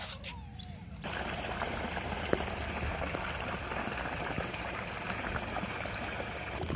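Steady splashing of a pool fountain jet falling into the water, starting about a second in.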